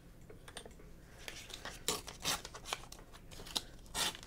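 Paper being torn along the edge of a steel ruler to trim it. After faint handling clicks, the tearing comes as a series of short rips from about two seconds in.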